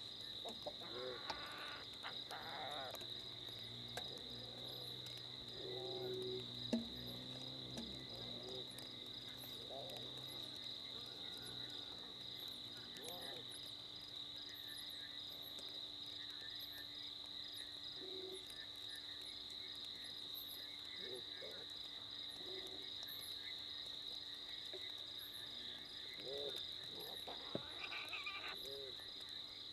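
Two white-tailed mongooses calling at each other with short, wavering, unhappy-sounding cries, several times over, most thickly near the start and again near the end: an aggressive exchange between the two. Under them runs a steady high trill of night insects.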